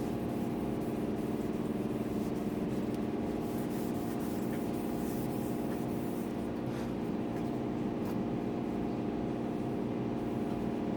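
Steady low hum of a running electric motor, such as a shop fan, holding the same pitch throughout.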